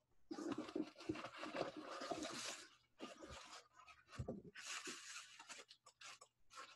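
Packing wrap rustling and crinkling as a wrapped item is unwrapped by hand, in two long spells, with a few soft knocks between them.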